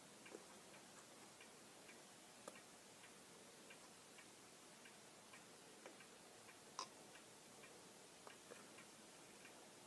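Near silence: room tone with faint, irregular small clicks and ticks, one a little louder about seven seconds in.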